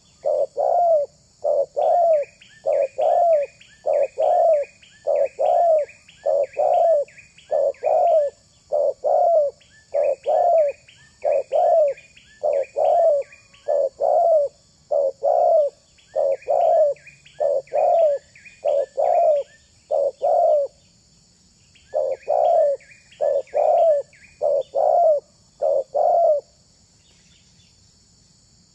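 Spotted dove (tekukur) cooing in long runs of evenly repeated low notes, with short breaks between runs and a pause near the end. A higher-pitched small bird chirps quickly over many of the runs.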